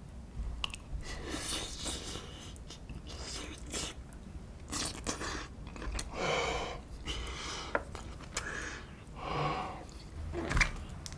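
A person eating close to the microphone: a series of short chewing and mouth noises, roughly one every second.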